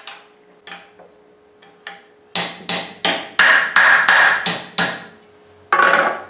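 A forging hammer striking metal on the engine: a few light clinks, then a quick run of about eight hard blows, three or so a second, each with a short metallic ring. One more heavy blow comes near the end.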